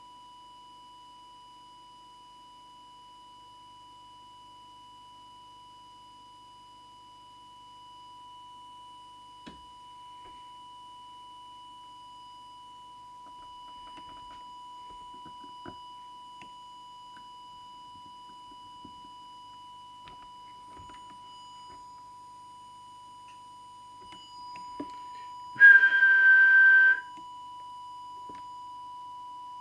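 A steady 1 kHz test tone from an audio oscillator, the kind used to set FM deviation when aligning a CB radio's transmitter. Near the end, a loud whistle of one steady note lasts about a second and a half.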